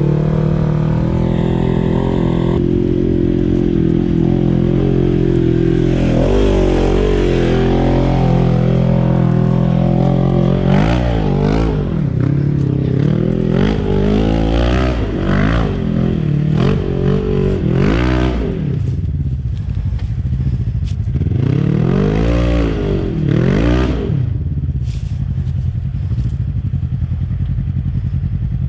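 Side-by-side UTV engine idling steadily, then revved up and down again and again in quick throttle bursts as it climbs a steep, rutted dirt hill. The pitch rises and falls about a dozen times.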